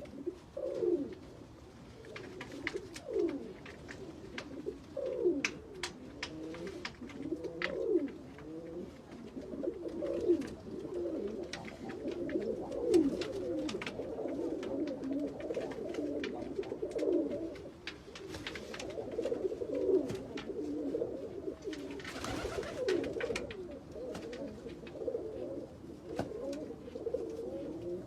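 Several pigeons cooing at once, low falling coos overlapping throughout. Scattered sharp taps and a brief rustle about twenty-two seconds in.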